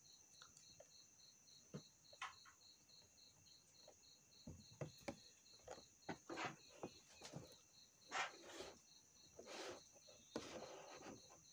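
Faint taps and rubbing of fingers on a thick clear plastic display box, with a few louder handling rustles in the second half. Underneath, a faint steady high chirping pulses about three times a second.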